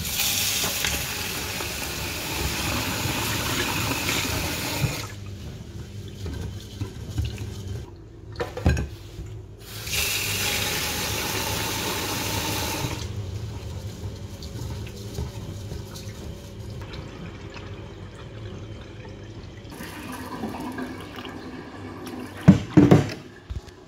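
Kitchen tap running into a rice cooker's inner pot to rinse rice, on for about five seconds, then again for about three. Near the end, water is poured into the pot from a jug, with a couple of sharp knocks.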